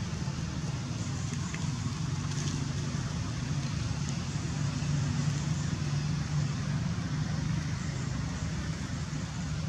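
Steady low rumble of motor traffic, unbroken and even in level.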